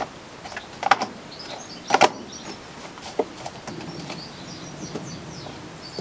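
Dishwasher top panel being pushed down and worked onto its tabs: two sharp knocks about one and two seconds in, then a few lighter taps.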